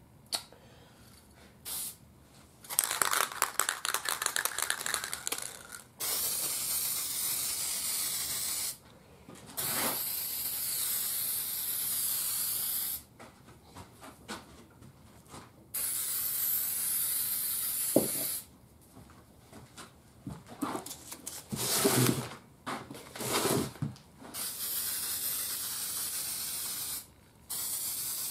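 Aerosol can of Varathane urethane spray hissing in several bursts of a few seconds each, with short pauses between them, as a clear finish coat is sprayed onto a stained wooden cabinet.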